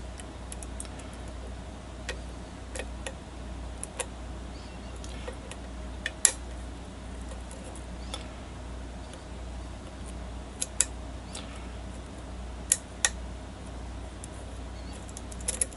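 Scattered light metallic clicks of a lock pick working the pins of a pin-tumbler challenge lock under tension, with a few sharper clicks about six, eleven and thirteen seconds in, over a low steady hum. The lock is stuck in a false set.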